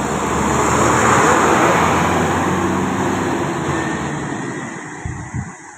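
Tour bus driving past at close range: the rush of its engine and tyres swells to a peak about a second in, then fades away over the next few seconds.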